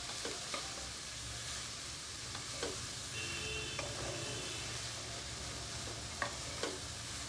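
Chopped carrots and French beans sizzling in oil in a nonstick wok while being stirred with a spatula, with a few short scrapes of the spatula against the pan.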